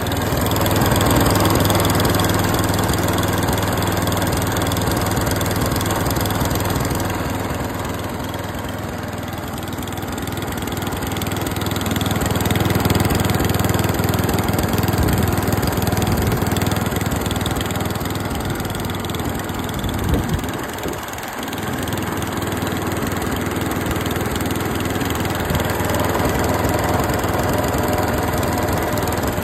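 Tecumseh AQ148 single-cylinder petrol engine on a cylinder lawn mower running steadily, with a brief dip about twenty seconds in.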